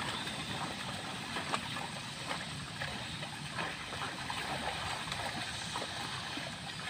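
Water buffalo wading and dragging a wooden harrow through a flooded, muddy rice paddy: steady sloshing of water and mud with many small splashes.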